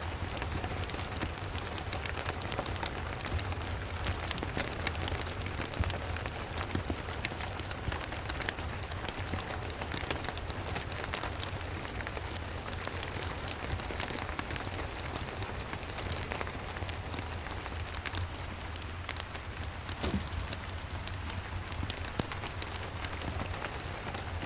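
Steady rain falling, with many small sharp crackles and drips scattered through it, as from a wood fire burning, over a steady low rumble.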